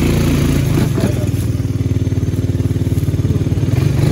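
Side-by-side UTV engine running and pulling under load, towing a stuck riding mower over a log; its note changes and pulses harder from about a second in, with a knock at that moment.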